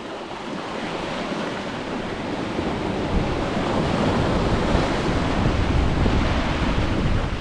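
Ocean surf: a wave swelling and breaking, the rush growing louder over the first few seconds and then holding, with wind buffeting the microphone.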